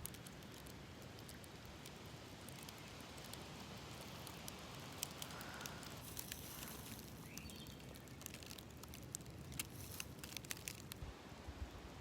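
Faint crackling and rustling of dry leaf litter and twigs underfoot, with many scattered sharp crackles over a steady outdoor hiss. A bird gives a short rising chirp about seven seconds in.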